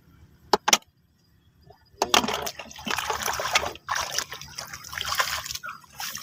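Shallow water being splashed and stirred by hands: two short splashes just after the start, then from about two seconds in a busy run of splashing, sloshing and trickling water that goes on for several seconds.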